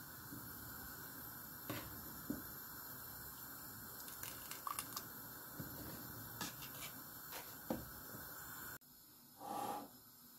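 Faint scattered clinks and knocks of a steel ladle against a stainless-steel cooking pot over a steady hiss, with one short louder noise after a cut near the end.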